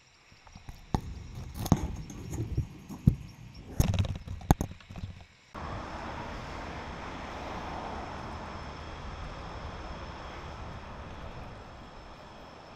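Footsteps crunching on a gravel path, a few uneven steps, then a sudden switch about five seconds in to steady street traffic noise.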